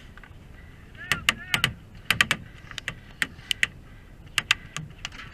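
Airsoft guns firing: about fifteen sharp cracks in irregular single shots and quick pairs, with faint shouting in the background.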